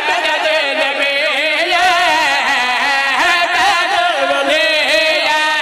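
A man's voice singing an unaccompanied-sounding, melismatic devotional recitation through a microphone, long held notes wavering and sliding up and down in pitch.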